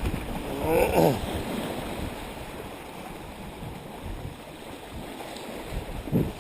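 Wind buffeting the microphone over a wash of water noise, with a short pitched call about a second in and a brief louder gust near the end.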